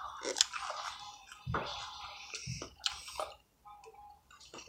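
Chewing and mouth sounds of people eating, with scattered small clicks and taps.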